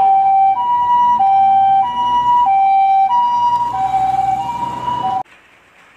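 Japanese ambulance's two-tone siren alternating a high and a low note, about one high-low cycle every 1.3 seconds, with a low vehicle hum beneath. It cuts off suddenly about five seconds in.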